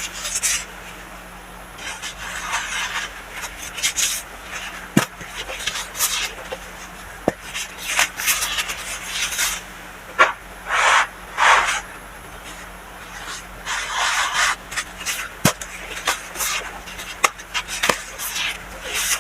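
Packed baking soda being softly crushed, giving irregular short bursts of crunching and rubbing with a few sharp clicks between them.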